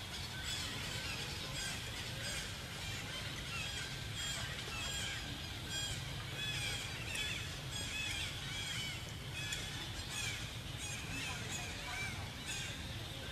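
Many short, high chirping animal calls repeating throughout, over a steady low rumble.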